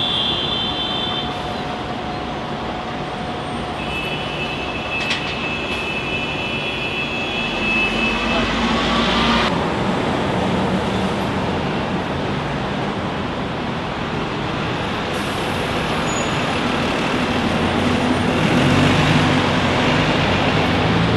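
Busy city street traffic, with double-decker buses and cars driving past and engines running. A high-pitched squeal sounds at the start and again a few seconds in. The traffic noise cuts off suddenly at the end.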